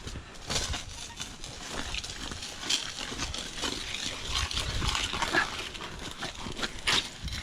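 Digging into wet, slimy creek-bed clay with a hand digging tool: a run of irregular scrapes, crunches and wet sucking sounds from the mud.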